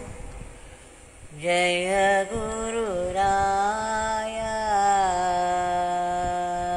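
A single voice singing long held notes in a devotional chant, sliding in pitch now and then. It comes in about a second and a half in, after a brief lull.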